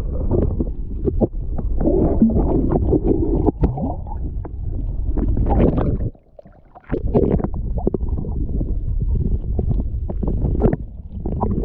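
Muffled rumbling and gurgling of water around an underwater action camera's housing as it moves through the sea, with scattered clicks and knocks. The noise drops out briefly just after six seconds, as the camera reaches the surface.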